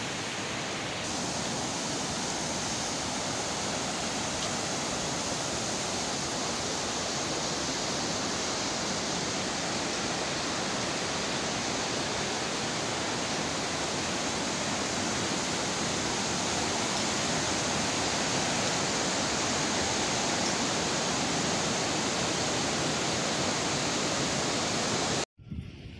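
Steady rush of a fast-flowing, rocky mountain river, an even noise with no pauses that cuts off abruptly just before the end.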